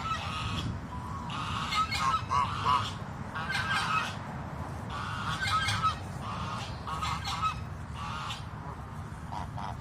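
Pond waterfowl calling with short, repeated honking calls, several in quick succession and overlapping through the whole stretch, over a steady low rumble.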